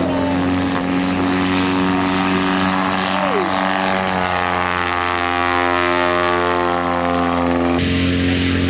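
Light airplane's piston engine and propeller running steadily, its pitch creeping up a little past the middle. The sound changes abruptly near the end.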